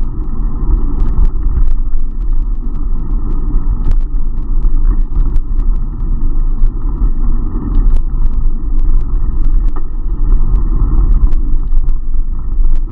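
Steady, loud, muffled rumble of wind and road vibration on a bicycle-mounted action camera while riding, with scattered small clicks and rattles from the bike.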